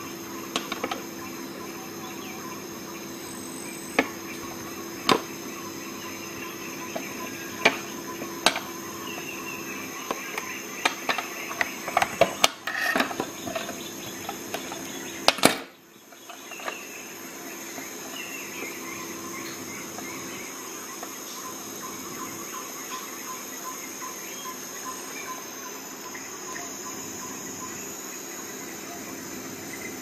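Leatherman Skeletool multi-tools being handled: scattered sharp metallic clicks and knocks, coming thicker and louder in the middle. A steady electrical hum and a high whine run underneath.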